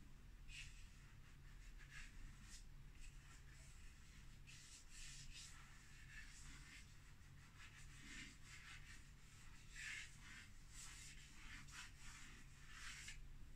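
Faint scratching of a white chalk pastel stick worked over a painted board in many short, irregular strokes.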